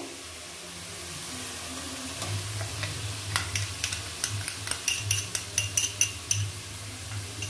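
Onion paste and cumin frying in oil in a non-stick wok with a steady sizzle while ginger-garlic paste is scraped in from a glass bowl. From about two seconds in there are repeated light clicks and scrapes of the bowl and spatula against the pan.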